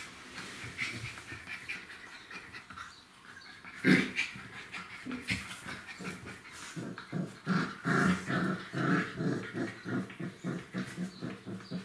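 Dark golden retriever puppies play-fighting, making short growls and yaps. A sudden loud sound comes about four seconds in, followed by a quick run of short puppy noises, about three or four a second, through the second half.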